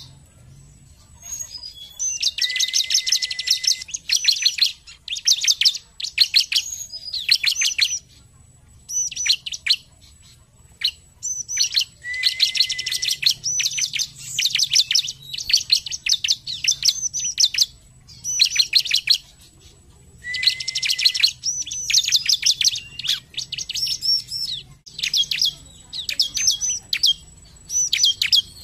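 Bar-winged prinia (ciblek) singing loudly and persistently: rapid strings of high, sharp notes in bursts of one to two seconds, separated by short pauses, some bursts carrying a held lower whistle.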